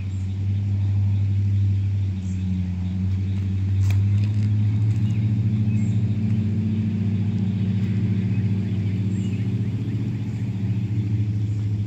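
Steady low mechanical hum of a running motor, with a faint click about four seconds in.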